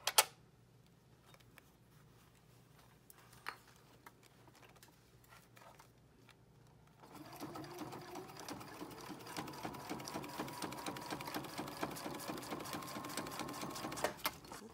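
Domestic sewing machine: a few sharp clicks in the first half, then from about halfway through it stitches at a steady fast rate, running binding through a binding foot, and stops shortly before the end.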